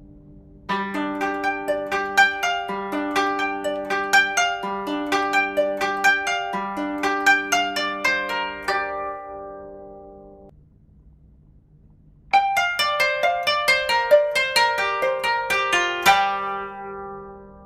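Background music of quick plucked-string notes in two phrases: the first starts about a second in and fades out around ten seconds, and the second starts after a short pause and dies away near the end.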